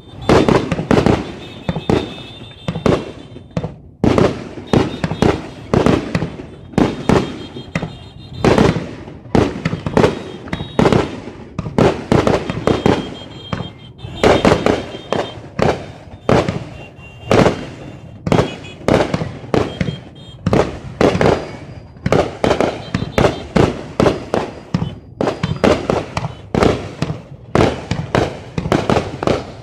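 Fireworks display: aerial shells bursting in quick succession, about two bangs a second, each with a short echoing tail.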